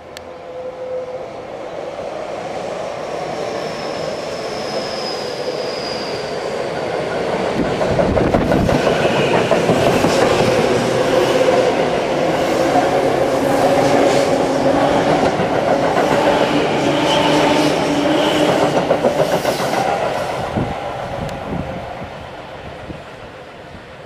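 Tobu 9000 series electric train running through a station at speed. Its noise builds as it approaches. The wheels clatter rhythmically over the rail joints with a steady hum under them as the cars pass close by, and the noise fades as it draws away near the end.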